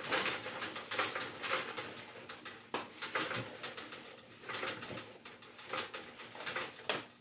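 Hands kneading and squeezing spiced minced meat (kefta) in a plastic bowl: a run of irregular wet squelches.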